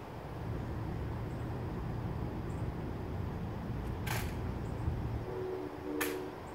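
Two sharp clicks about two seconds apart over a low steady rumble.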